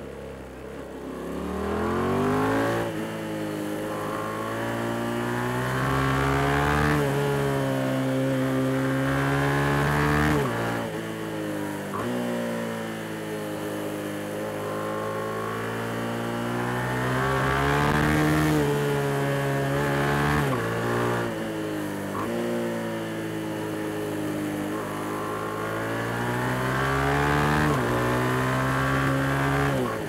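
Yamaha MT-07's 689 cc parallel-twin engine being ridden hard. The revs climb steeply in the first few seconds, then rise and fall again and again, with sudden drops in pitch several times as the throttle is rolled off.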